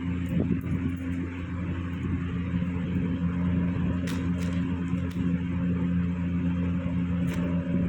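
Steady low motor hum, even and unchanging, with a few faint short clicks about four seconds in and again near the end.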